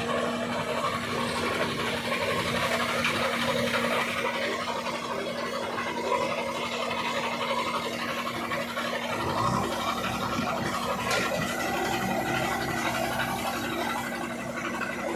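JCB backhoe loader's diesel engine running steadily under load as its rear bucket digs soil, with a constant hum and rattling. The low rumble grows stronger about nine seconds in, and there is a brief clank a little later.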